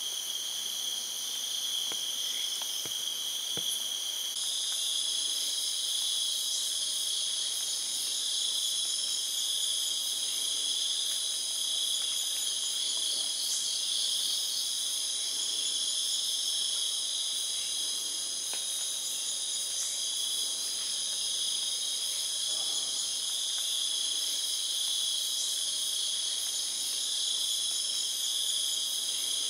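Night-time chorus of rainforest insects such as crickets, several steady high-pitched trills layered over one another. The mix of trills shifts about four seconds in.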